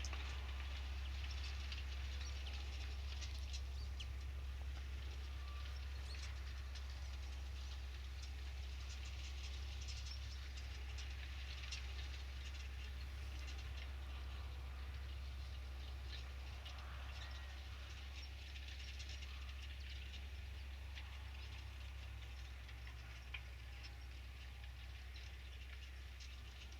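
Tractor engine running at a distance during ploughing, a steady low drone that slowly fades, with faint scattered high ticks over it.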